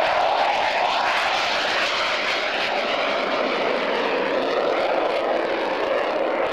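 Twin Pratt & Whitney F100 turbofans of a McDonnell Douglas F-15E Strike Eagle at high power as it climbs away just after take-off: a loud, steady jet roar.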